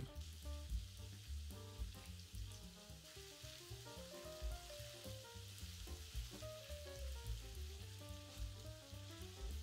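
Chicken pieces and sliced onions sizzling in a hot frying pan while they are stirred with a wooden spatula, the onions being fried down hard. Faint background music with a melody and bass line plays underneath.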